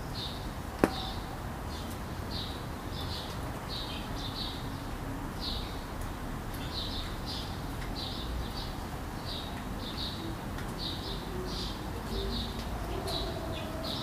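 Small birds chirping over and over, short high chirps about two a second, over a steady low background noise. A single sharp click sounds about a second in.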